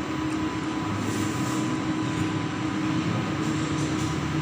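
Printing machine running with a steady mechanical hum and a constant thin whine.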